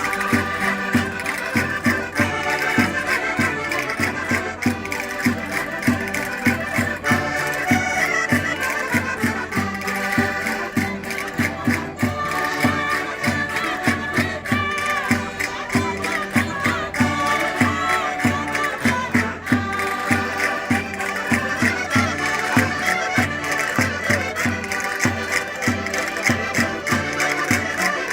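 Portuguese concertinas (button accordions) playing a lively Minho folk tune, with dense held chords and a steady, regular beat that runs without a break.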